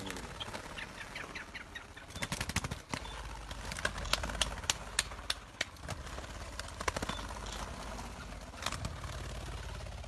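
Partridges flushing from a release crate, a quick run of whirring wingbeats about two seconds in, followed by scattered sharp flaps and knocks over the next few seconds.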